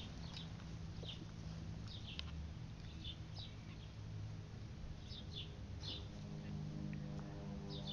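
Birds chirping repeatedly, short high chirps every half second or so, over a steady low hum; a few steady tones join in near the end.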